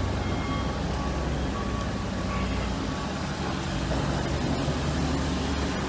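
Steady low rumble of a running vehicle engine, with a faint high beep repeating in short pulses during the first half.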